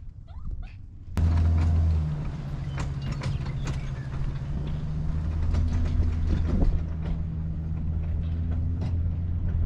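A motorhome's engine pulls away towing a small car on a tow bar, starting suddenly about a second in as a loud, steady low drone. Scattered clicks and knocks run through it from the rolling tow setup.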